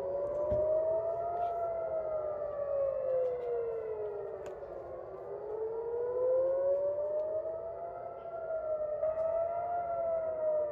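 Civil-defence air-raid warning sirens wailing, each rising and falling slowly over several seconds, with more than one siren sounding out of step.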